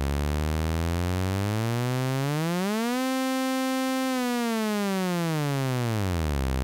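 A synthesized sawtooth wave from the Sytrus synth, played at a steady level while its frequency is swept: the pitch glides up from low over about three seconds, holds for about a second, then glides back down to low again.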